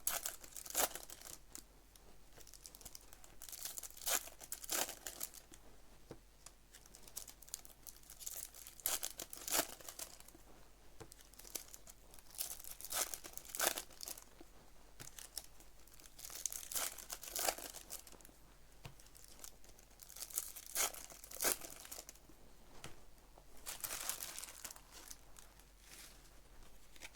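Trading card pack wrappers being torn open and crinkled by hand, in short crackly bouts every three to four seconds.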